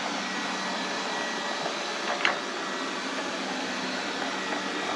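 Lefant M210B robot vacuum running with a steady whir and a faint steady whine, with one short click about two seconds in.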